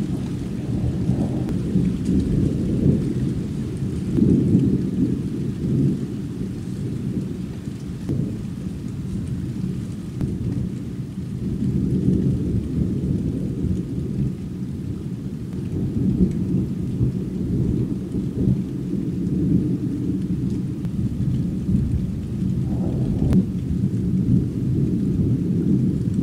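Thunder rumbling on and on, swelling and fading several times, over steady rain.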